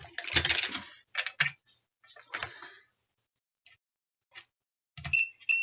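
Clicking and rustling of tools being handled for about two and a half seconds, then near the end a multimeter's continuity tester starts beeping a high tone in two short pieces as its probes touch the graphics card's 12 V rail: the beep is the sign of a short, a near-zero-ohm path.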